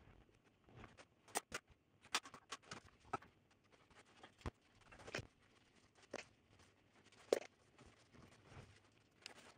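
Scattered small clicks and taps of hand tools and small metal parts being handled on a cloth-covered workbench, as transistors are unscrewed from a small heatsink and wiped with a rag; the sharpest click comes about seven seconds in.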